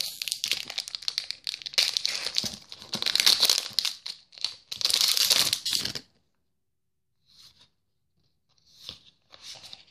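Foil wrapper of a Pokémon card booster pack being torn open and crinkled, a dense crackling that stops about six seconds in, with a few faint rustles after.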